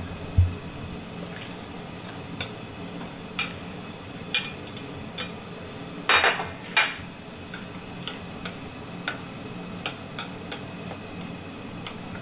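Raw chicken thigh pieces are tipped into a hot oiled nonstick frying pan about six seconds in, landing with a short loud burst of noise. Light clicks and taps of utensils against the pan come about once a second, with chopsticks spreading the chicken near the end, and a low thump comes just after the start.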